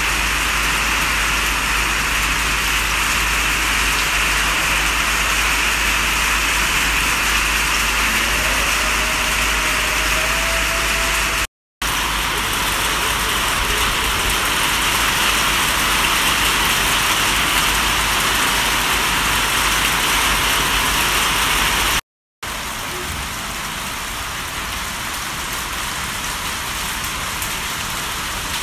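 Steady rain falling, an even hiss that drops out briefly twice where clips are joined, and is a little quieter after the second break.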